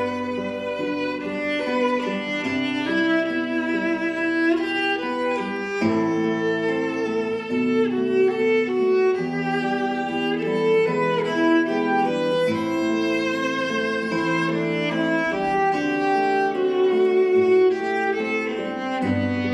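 Violin and classical guitar duo playing live: the bowed violin carries the melody in long held notes over the guitar's accompaniment.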